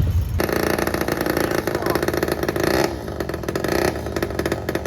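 Small engine running fast with a rapid, buzzy pulsing. It sets in abruptly about half a second in and eases briefly around the three-second mark.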